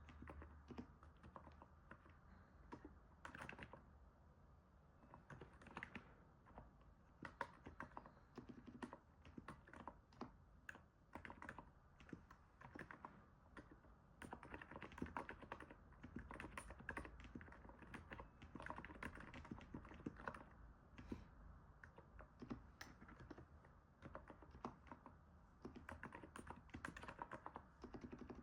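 Continuous typing on a NIZ 68 Pro electrostatic capacitive keyboard: quiet, irregular runs of soft keystrokes, the sound the uploader likens to stepping on snow. The typing gets a little livelier about halfway through.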